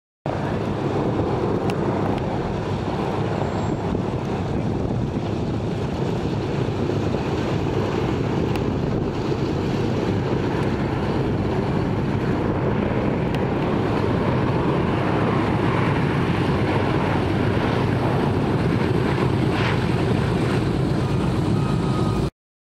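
Fairchild C-123 Provider flying past overhead, its two radial piston engines and propellers giving a steady drone that grows a little louder in the second half and cuts off suddenly near the end.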